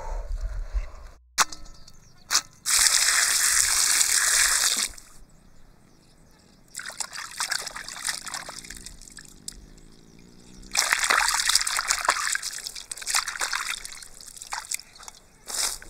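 Water sloshing and trickling in a metal basin as octopus tentacles are washed and lifted out dripping, in three spells of a few seconds each, the middle one softer.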